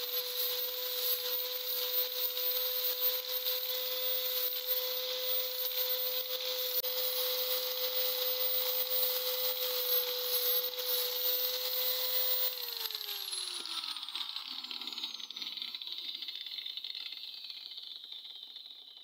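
Angle grinder with a sanding disc running at a steady whine while it sands a knife's blade and handle. About twelve seconds in it is switched off, and the whine falls in pitch as the disc spins down to a stop.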